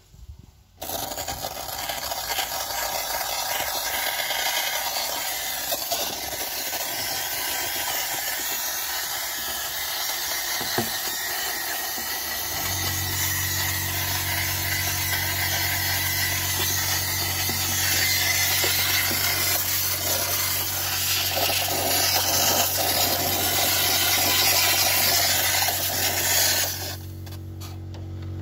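Handheld steam cleaner jetting steam onto an engine bay, a loud steady hiss that starts about a second in and cuts off shortly before the end. About halfway through, a steady low hum joins it and keeps going after the hiss stops.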